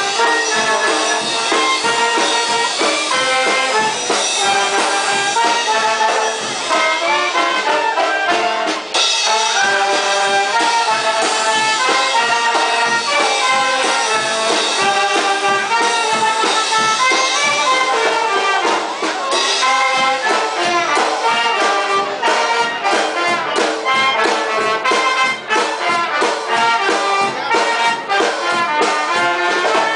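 Live brass band playing a lively dance tune, trumpets and trombones carrying the melody over a steady, even beat.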